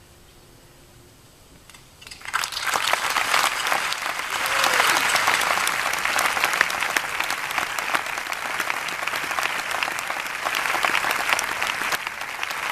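Audience applauding: a brief hush, then clapping breaks out suddenly about two seconds in and carries on as dense, steady applause.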